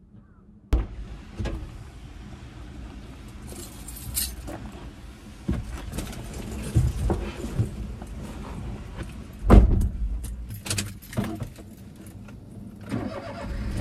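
A person climbing into the driver's seat of a small van: keys jangling, clothing rustling and small knocks, then the driver's door shut with one heavy thud about two-thirds of the way through, followed by a few light clicks.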